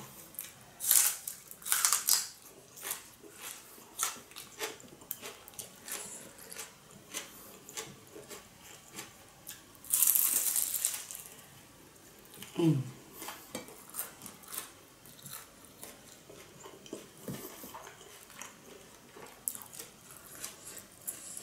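Eating sounds from a fried minced-pork spring roll: many small crisp clicks and crackles of chewing and handling, with one loud crunching bite about halfway through. A brief hummed voice sound follows soon after.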